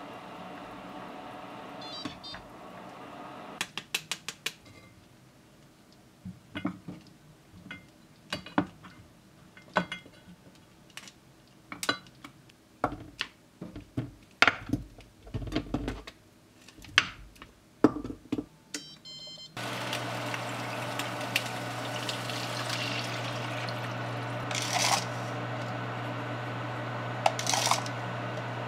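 Metal kitchen tongs clacking against a stainless mesh strainer and a frying pan as blanched pork back ribs are picked up and moved: a long run of sharp, irregular clicks and knocks. About twenty seconds in, a steady low hum starts, with two light clinks near the end.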